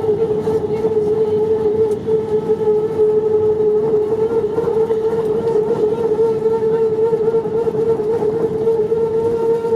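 Airbus A321neo jet engines heard from inside the cabin after landing, a steady loud whine over a low rumble, edging up slightly in pitch.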